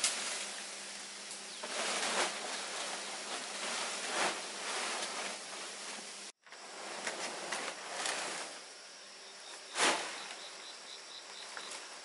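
Dry palm-leaf thatch rustling and crackling in several bursts as leaves are handled on a bamboo roof, over a steady background of insects; a quick run of about four high chirps a second near the end.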